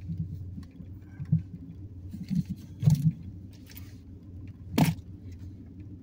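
Steady low outdoor rumble, like road traffic, with a few soft low thumps and one sharp knock nearly five seconds in.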